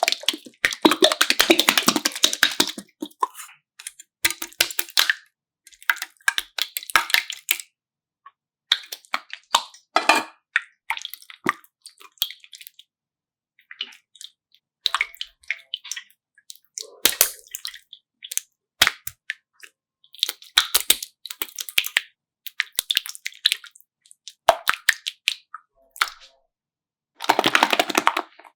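Glitter slime being squeezed and pulled by hand, giving irregular crackling, clicking and squelching bursts with short silent pauses between handfuls.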